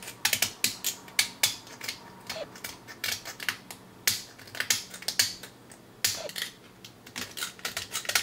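Utility knife blade scraping and shaving sagged support plastic off the edge of a 3D-printed PLA bearing race: a rapid, irregular run of short scraping clicks.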